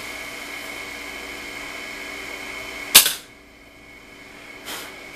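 Hard plastic shell of a two-piece phone case being handled, with one loud, sharp plastic clack about three seconds in and a fainter click near the end.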